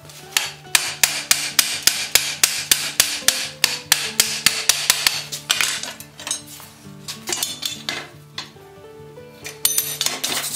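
A quick, even run of hammer blows on a red-hot flat iron bar held in a bench vise, about three a second, over background music. Near the end a wire brush scrapes scale off the hot iron.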